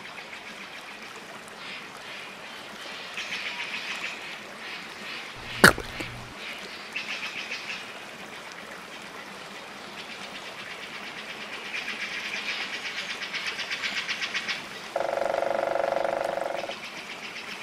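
Outdoor animal chorus: fast, high, pulsing calls that swell and fade in waves. A single sharp click stands out about six seconds in, and a steady low hum sounds for under two seconds near the end.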